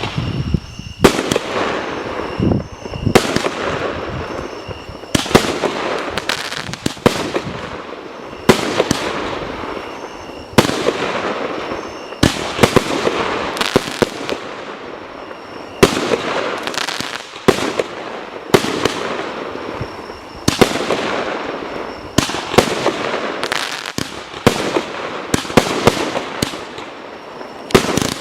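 TB36 'Little Star' 25-shot consumer fireworks battery (cake) firing its shots one after another, a sharp bang about every one to two seconds. Each bang is followed by a fading noisy tail.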